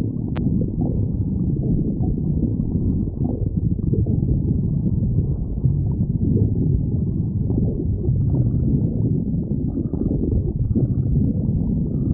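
A hungry person's stomach growling: a continuous low, muffled gurgling rumble with nothing above a low pitch.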